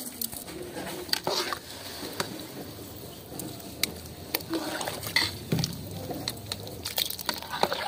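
Long-handled metal skimmer stirring rice in boiling water in a large metal pot, with irregular scrapes and clinks of metal against the pot.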